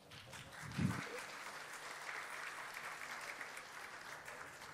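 Audience applauding, the clapping building up in the first second, holding steady, then thinning out near the end. A short voice sounds about a second in.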